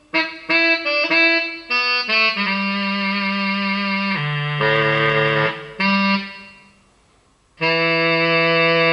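Electric guitar driving a guitar synthesizer set to a tenor saxophone voice, playing a quick run of short notes, then longer held notes, and after a short pause one long held note.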